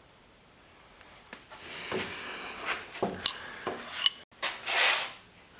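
Metal hand tools and door-handle parts clinking and scraping during work inside a truck door, with two sharp ringing metallic clinks about three and four seconds in and a rushing scrape near the end.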